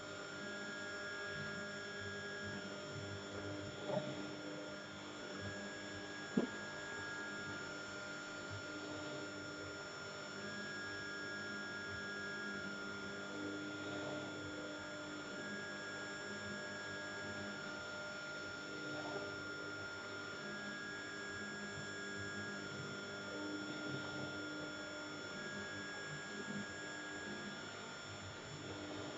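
CNC machine running with a steady electrical whine and hum. A higher tone comes on for about two seconds every five seconds, alternating with a lower one, as an axis travels back and forth. Two faint clicks come early on.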